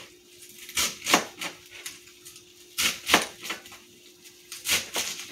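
Kitchen knife chopping cabbage into squares on a cutting board: six sharp chops in three quick pairs, about two seconds apart.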